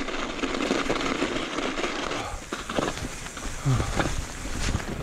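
Mountain bike tyres rolling and crunching over snow, a steady noisy crunch, with knocks and rattles from the bike over bumps in the second half.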